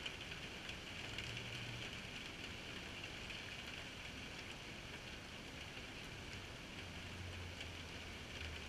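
Steady rain falling on wet ground and puddles: an even hiss with scattered faint drop ticks. A faint low hum comes in briefly about a second in and again near the end.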